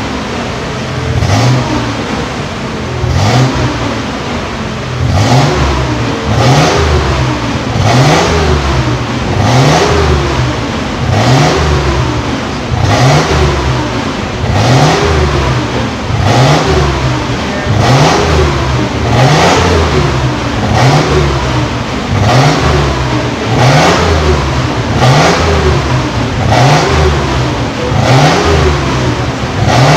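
Mitsubishi Pajero's 3.0-litre V6 revved over and over through a new full stainless-steel exhaust system. The engine note climbs and drops back in even throttle blips, about one every second and a half.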